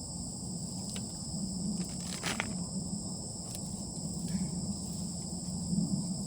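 Steady high-pitched chorus of insects chirring, with a low steady hum underneath and a few short rustles and clicks as wood chips are handled, the clearest about two seconds in.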